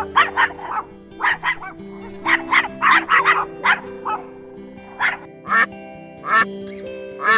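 Ducks quacking: a quick run of short, nasal quacks, thinning out in the second half to single quacks about a second apart. Background music plays underneath.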